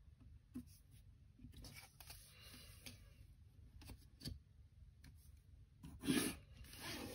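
Pencil scratching faintly on paper as a line is ruled along a plastic set square, with light ticks as the set square is set down and moved. About six seconds in there is a louder rub of the set square sliding across the paper.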